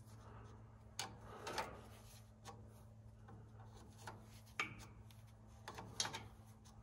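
A handful of faint clicks and light taps of a wrench and metal fittings being handled as the fuel injector lines are fitted on a diesel tractor engine, over a steady low hum.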